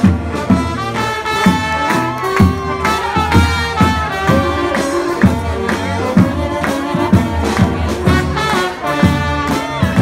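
Live brass band playing swing-style jazz: trumpets, trombone, saxophone and sousaphone over a steady drum beat.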